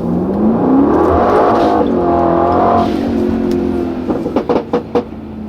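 BRABUS 900's 4.5-litre twin-turbo V8 revving: the engine note climbs for about a second and a half, holds briefly and falls away, followed by a few sharp pops near the end.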